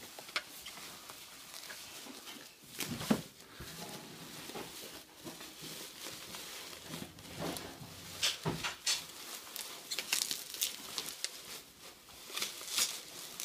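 Bubble wrap rustling and crinkling in irregular bursts as it is pulled away from a packed object in a cardboard box, with a louder bump about three seconds in.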